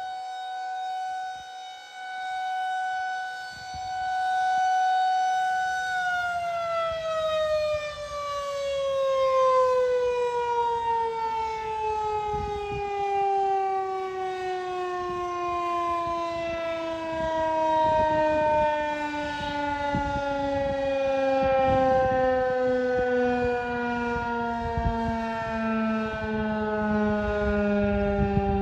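Federal Signal 2001 rotating outdoor warning siren finishing its steady alert tone: it holds one pitch, swelling and fading in loudness, then about six seconds in it cuts power and winds down in one long, smooth falling glide as the rotor coasts to a stop.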